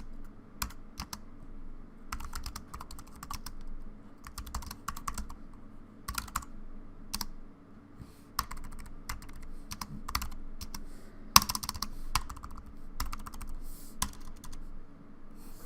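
Typing on an Anker Ultra Slim Bluetooth keyboard with rubber-dome keys: irregular runs of soft plastic key clicks, with a few harder strikes about two thirds of the way through.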